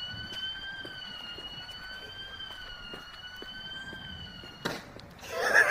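An alarm sounding one steady, high-pitched tone with a slight waver in pitch, cutting off suddenly with a knock about four and a half seconds in. A voice is heard near the end.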